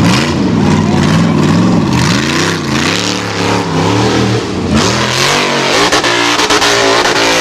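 Rock bouncer buggy's engine revving hard in repeated surges, its pitch rising and falling as the tyres claw up a steep dirt wall. A quick run of sharp knocks comes about six seconds in, as the buggy rears up against the wall.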